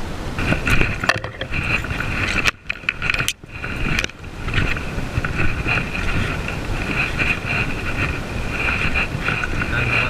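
Rustling and scraping handling noise close to the microphone as fly line is pulled and handled. A continuous flickering high chirr runs underneath throughout.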